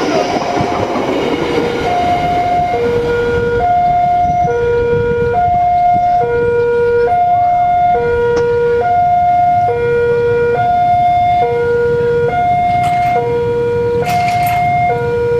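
Railway level-crossing warning alarm sounding an electronic two-tone chime, a higher and a lower tone alternating, each held just under a second. The rumble of the passing train's coaches fades out over the first two seconds.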